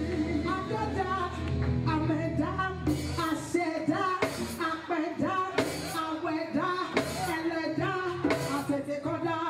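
Live gospel music: a woman singing lead into a microphone over a band. Sharp percussive hits come in about three seconds in and recur through the rest.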